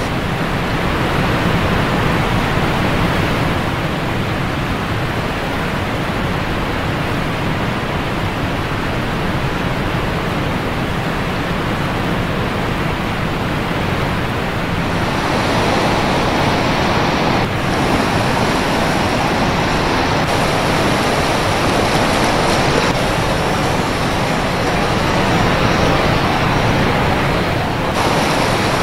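Floodwater rushing: a river in spate pouring through a dam's open spillway gates and surging over rapids and standing waves, a loud, steady rush of white water. Its character shifts about halfway through, with brief breaks near the end.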